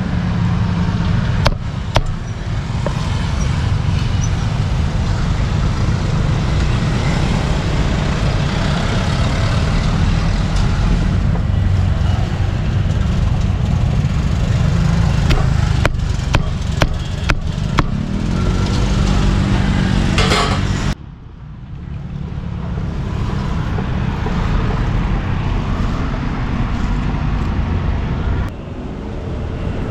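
Steady roadside traffic rumble with passing vehicles, and scattered sharp knocks of a cleaver chopping grilled meat on a board, clustered about two-thirds of the way in. An engine revs up just after that cluster, then the noise drops off suddenly.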